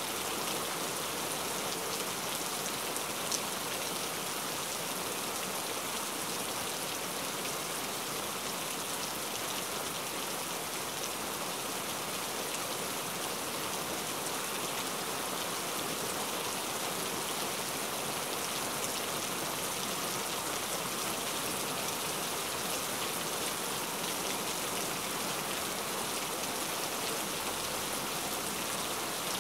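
A steady, even hiss that does not change throughout.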